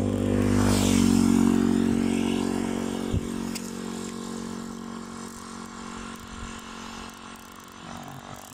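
A motorcycle engine passes close by. Its note drops in pitch as it goes past about a second in, then fades steadily as it rides away.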